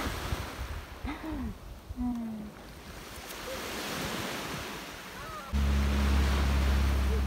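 Small waves breaking and washing on a pebble beach. About five and a half seconds in, a louder steady low hum comes in suddenly and continues.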